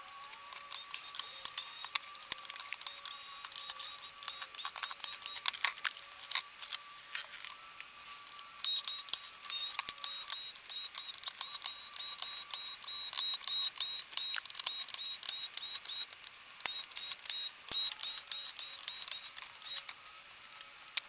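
Dense plastic clicking and scraping as the outer plastic covers of a PS5 Slim are pried and unclipped, with a couple of brief pauses. A faint steady tone runs underneath.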